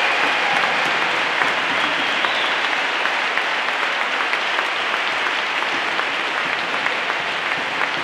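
Large crowd applauding: dense, steady clapping that eases off slightly.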